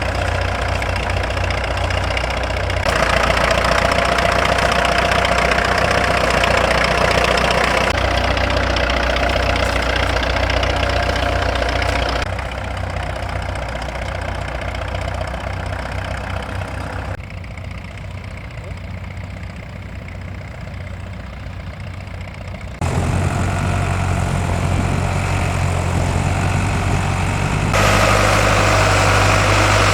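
Tractor engines running, in a string of shots that cut abruptly every few seconds from one engine sound to another.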